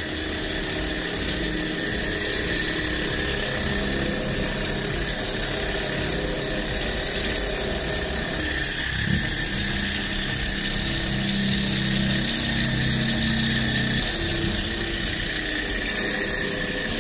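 Single-cylinder alcohol-fired model Stirling hot-air engine spinning at full speed with no load, its belt off the flywheel: a steady, high-pitched mechanical whine.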